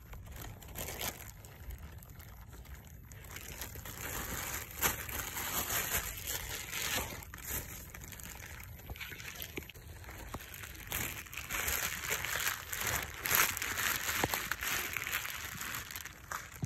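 Irregular rustling and crunching of dry grass and weeds being trampled and brushed, with many small scattered crackles, busier in the second half.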